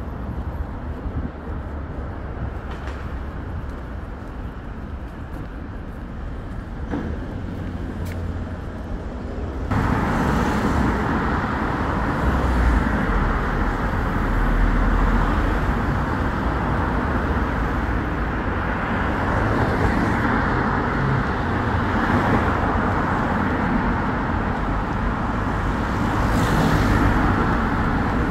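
City road traffic: cars driving past in a steady wash of engine and tyre noise, which gets suddenly louder about ten seconds in.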